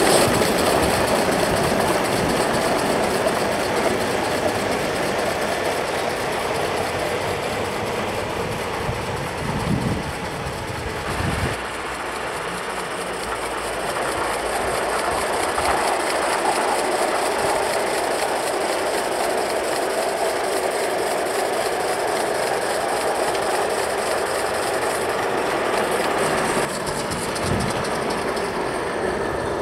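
Accucraft Tornado, a gas-fired Gauge 1 live-steam model locomotive, running along the track with its train of coaches: a steady rushing running noise that changes abruptly about 11 and 27 seconds in.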